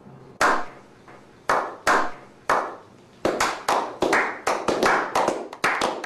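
Slow clap: single hand claps spaced about a second apart, quickening about three seconds in into faster, uneven clapping by several people.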